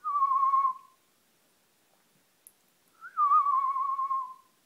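Two long whistles, the first about a second in length and the second starting about three seconds in. Each briefly rises, then slides slightly down and wavers as it is held.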